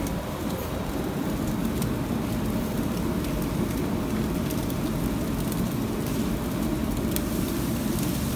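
Steady rushing hum of restaurant kitchen equipment, with a few faint clicks over it.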